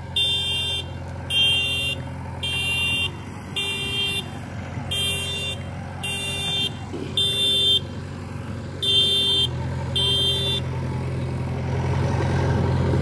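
A machine's reversing alarm beeping regularly, about one beep a second, over a heavy diesel engine running. The beeping stops about ten and a half seconds in, and the engine gets louder near the end.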